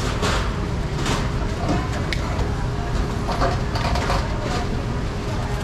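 A small knife shaving the skin off a guava in short, separate scraping strokes, over a steady low background rumble with faint voices.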